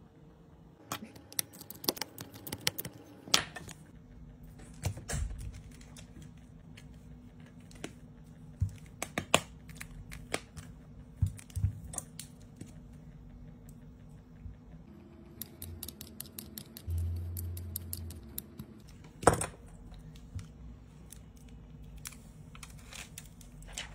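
Irregular small clicks and taps of fingers and tools on a smartphone's parts and case during repair on a workbench, with a brief low hum about 17 seconds in and one louder click a little after.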